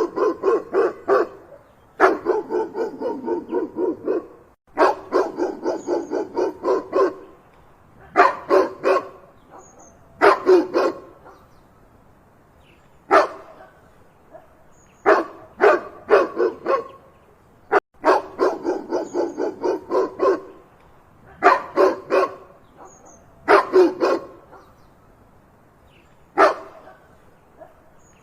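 A dog barking loudly in rapid volleys of several barks each, with short pauses of a second or two between volleys.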